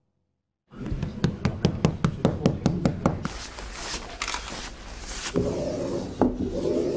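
Stiff bristle brush tapping rapidly on a sheet of paper laid over a painting, about five strikes a second for some two seconds, then softer rubbing and brushing strokes as the paper is pressed down during mounting.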